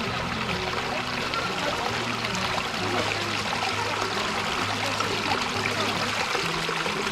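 Shallow mountain stream flowing over rocks: a steady, even rush and trickle of water.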